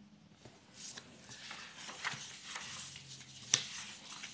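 Sheets of paper rustling as they are handled and shifted on a desk, with one sharp click about three and a half seconds in.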